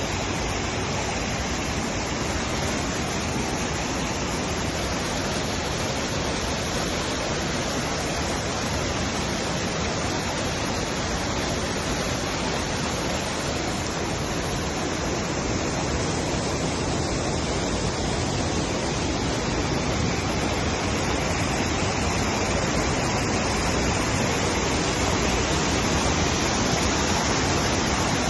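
Flooding mountain river rushing past in a steady, unbroken wash of water noise.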